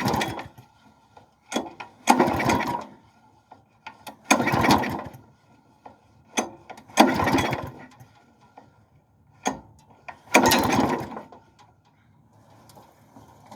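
Small lawnmower engine being pull-started four times, each pull turning it over for about a second without it catching. The owner takes the failure to start for a throttle set too low.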